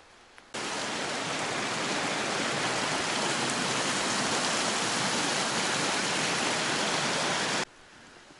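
Swollen forest stream rushing over rocks, full of meltwater from freshly melted snow: a loud, steady rush of water that starts suddenly about half a second in and cuts off suddenly near the end.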